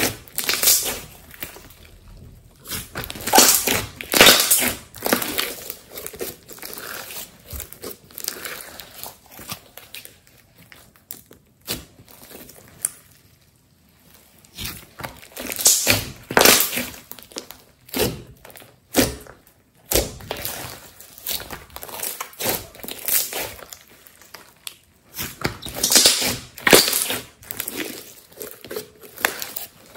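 Thick glossy slime being kneaded, squeezed and stretched by hand, giving irregular sticky crackles and pops as it folds and tears, with a brief lull a little before the middle.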